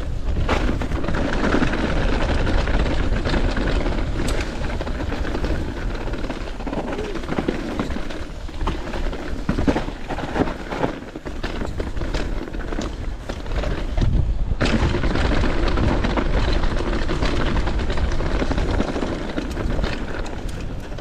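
Downhill mountain bike descending a rough trail at speed, heard from the rider: wind buffeting the microphone in a steady low rumble, with the bike rattling and knocking sharply and often over bumps.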